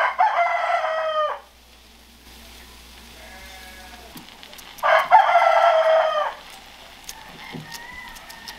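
Rooster crowing twice, each crow about a second and a half long and falling in pitch at the end, about five seconds apart. A fainter crow comes in between.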